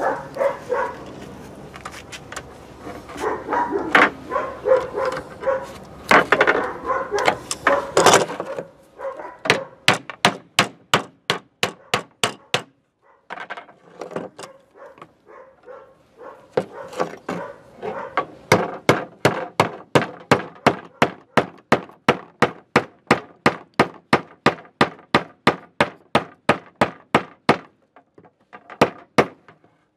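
Hammer striking a bare copper ground wire on a wooden bench, a long run of sharp, evenly spaced blows about three a second, with a short pause partway through. Before the blows start, the wire and tools clatter and rustle as they are handled.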